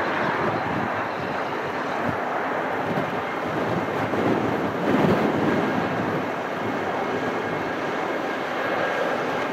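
A Boeing 717-200's two rear-mounted Rolls-Royce BR715 turbofans running at low taxi thrust: a steady rushing jet noise that swells briefly about five seconds in.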